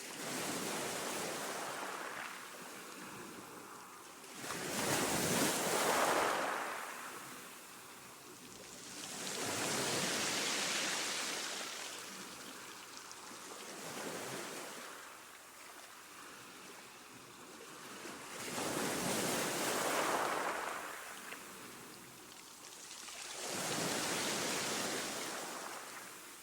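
Sea waves crashing on rocks, the surf swelling and falling back in about five surges several seconds apart, the loudest about five seconds in.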